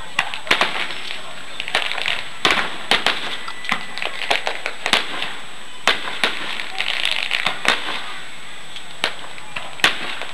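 Aerial fireworks shells bursting overhead: an irregular series of sharp bangs and crackles, several a second at times.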